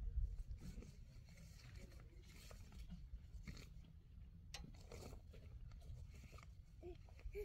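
Blue plastic tarp crinkling and rustling in irregular crackles as it is handled and lifted.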